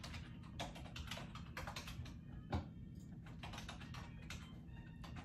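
Quiet, irregular clatter of keystrokes on a computer keyboard, with one sharper knock about halfway through.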